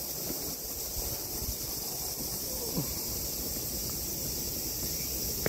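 Steady high-pitched chorus of insects, such as crickets, over a low irregular rumble, with one short click near the end.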